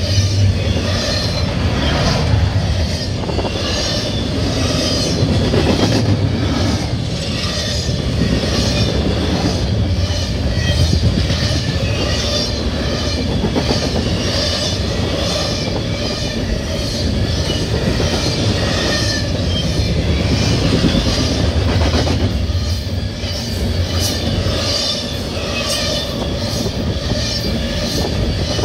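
CSX double-stack container train passing close by: a loud, steady rumble of the well cars rolling on the rails, with a repeating clatter of wheels over rail joints.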